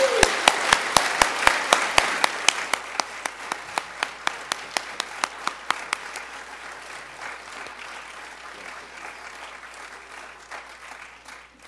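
Congregation applauding, with one close pair of hands clapping steadily at about four claps a second above the rest. The applause slowly dies away and has stopped near the end.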